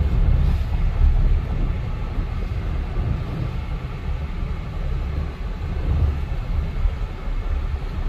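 Steady low rumble of road and engine noise inside a moving vehicle's cabin.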